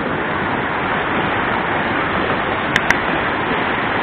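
Whitewater of a rocky river rapid rushing steadily as it pours over a small cascade, with two sharp clicks close together about three seconds in.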